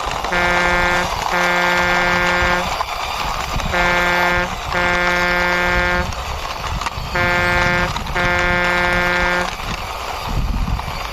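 Truck horn honking three times, each time a short blast followed by a longer one, on one steady pitch over a constant rushing background.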